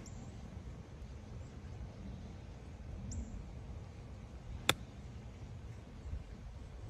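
Golf club striking the ball on a chip shot, with the club also taking a divot: one sharp click about two-thirds of the way in, over a low rumble.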